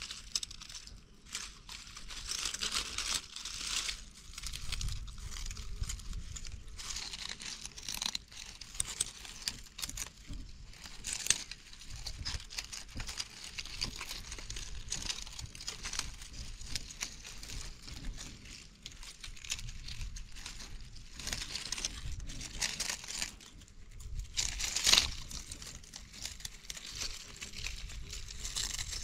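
Dry leaf litter and brush crackling and rustling in irregular bursts, with one louder crackle near the end.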